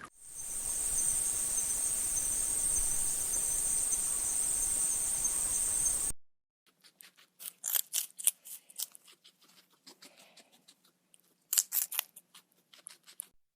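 A steady high-pitched insect drone for about six seconds, then it cuts off abruptly. Scattered short, sharp clicks and chirps follow.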